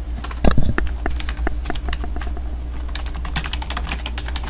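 Fast typing on a computer keyboard, keys clicking irregularly several times a second, with one louder knock about half a second in, over a steady low electrical hum.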